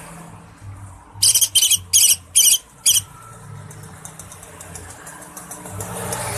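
Green leafbird (cucak ijo) singing: five loud, sharp, high-pitched bursts of song in quick succession, followed by a faint rapid high trill.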